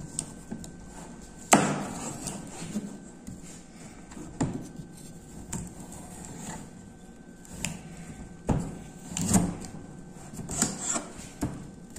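Kitchen knife cutting a peeled carrot on a plastic cutting board: irregular knocks of the blade through the carrot onto the board. The loudest comes about a second and a half in, with a quicker run of cuts near the end.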